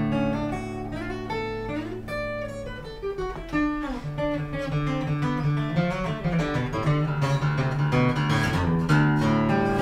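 Acoustic guitar being strummed, the chords changing every second or so.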